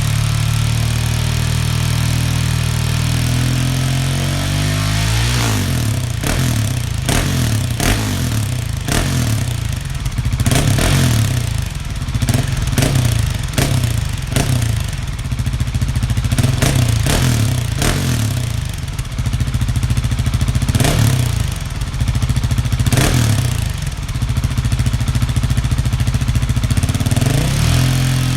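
Husqvarna 701's single-cylinder engine breathing through an aftermarket Arrow exhaust, idling at first, then revved hard in a long series of quick throttle blips from about five seconds in, dropping back to idle near the end.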